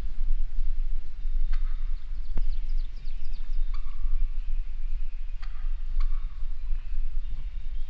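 A steady low rumble, like wind or handling on the microphone, under short scattered bird calls, among them a quick falling run of notes about two and a half seconds in.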